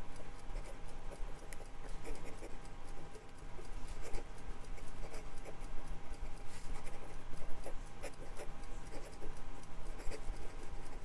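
Steel nib of a Pilot Prera fountain pen scratching across notebook paper in quick, irregular strokes of fast handwriting.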